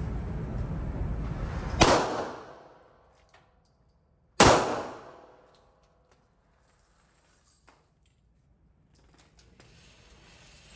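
Two gunshots about two and a half seconds apart, each followed by a short echoing decay.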